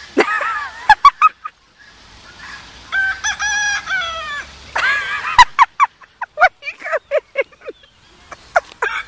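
Rooster crowing, a held call about three seconds in, with more short high calls and a few sharp clicks through the rest.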